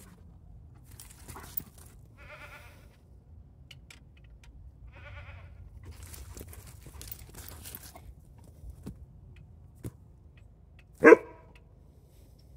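Siberian husky vocalizing in play: two short, wavering, bleat-like whines, then one loud sharp bark near the end.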